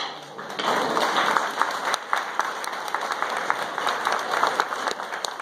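Audience applauding, a dense patter of hand clapping that starts about half a second in.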